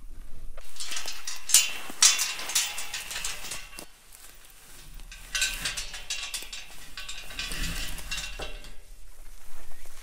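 Portable steel livestock panel being handled and moved through tall grass and weeds: rustling and scraping in two stretches, with two sharp knocks about one and a half and two seconds in.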